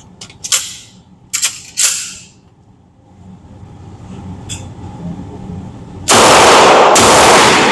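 Walther PDP pistol firing. A few sharp cracks come in the first two seconds, then from about six seconds in, shots follow in quick succession, each so loud it overloads into a long blast.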